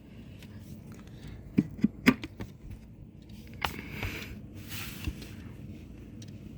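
Handling noise: a few light clicks and knocks about a second and a half in, then two short bouts of rustling.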